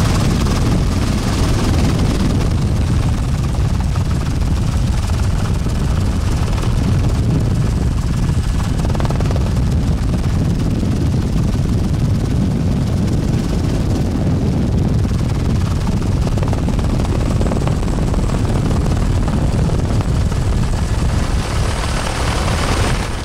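Helicopter rotor and engine noise, a loud steady rumbling drone that runs on without a break, heard from on board the helicopter.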